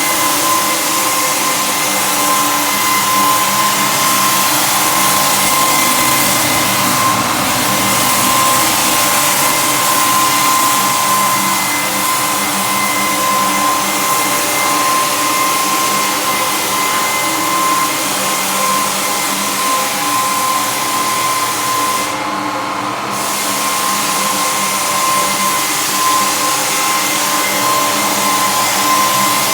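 Floor sander running steadily on timber floorboards: a constant motor whine over a loud sanding hiss. About three quarters of the way through, the hiss drops out for under a second while the whine goes on.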